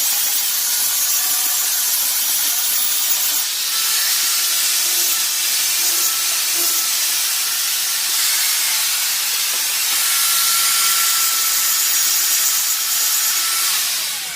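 Power grinder grinding down a steel axe blade: a steady, loud grinding hiss with a faint whine, the motor beginning to wind down right at the end.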